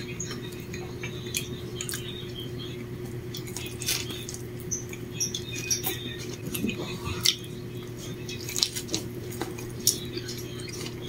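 Dishes and utensils being handled, with light clinks and taps scattered over a steady low hum.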